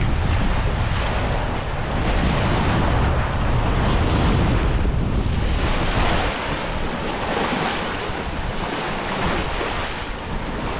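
Rush of sea water along a sailing catamaran's hulls, mixed with wind buffeting the microphone. The low wind rumble eases about halfway through.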